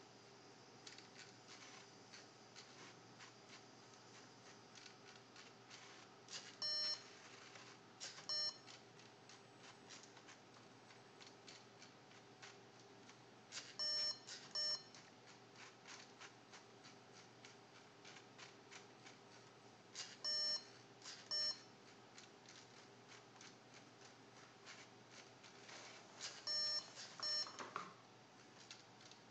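LEGO Mindstorms NXT plotter at work: the NXT brick's speaker gives short electronic beeps in pairs, a pair every six or seven seconds, the last group a quick three. Underneath runs a faint steady hum with many small ticks from the mechanism.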